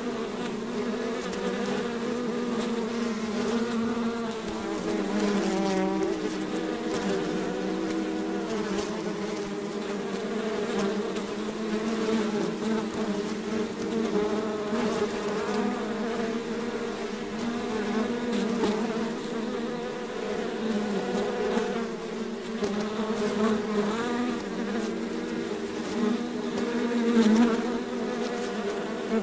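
A swarm of bees buzzing continuously, many overlapping wing tones wavering in pitch as a steady, dense buzz.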